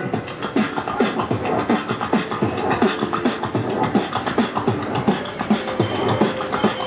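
Human beatboxing through a handheld microphone: a fast, dense beat of vocal kick drums, snares and clicks, with a held note joining about five seconds in.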